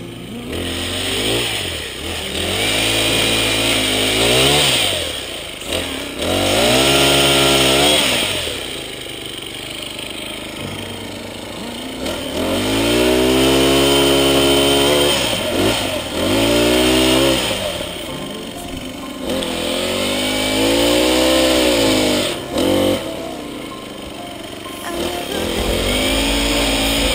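Honda Versatool pole pruning saw's small four-stroke engine revving up and dropping back again and again, about seven surges of a few seconds each, as the saw cuts through branches.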